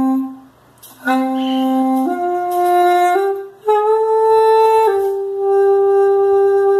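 Saxflute (mini sax, a xaphoon-type single-reed pipe with a saxophone-style mouthpiece) being played. A held note stops at the start; after a short pause come a few notes stepping upward, a brief break, a higher note, then a slightly lower note held steadily for about three seconds.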